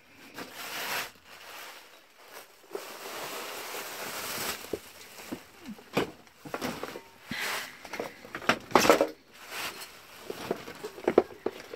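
Rummaging through junk and clutter: rustling and scraping with scattered knocks and clatters, the loudest about three quarters of the way through and a quick run of clicks near the end.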